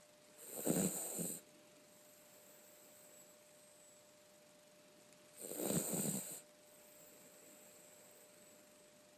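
Snoring: two snores about five seconds apart, each lasting about a second.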